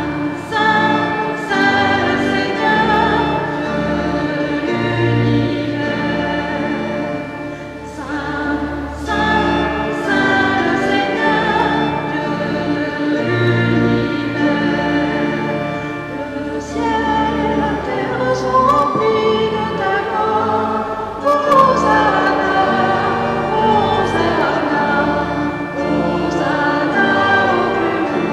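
Voices singing a liturgical hymn over sustained organ chords.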